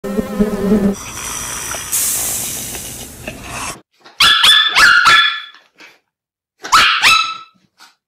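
Honeybees buzzing on the comb. After a short break comes a German Shepherd-type dog barking: a quick run of about five high barks about four seconds in, then three more near the end.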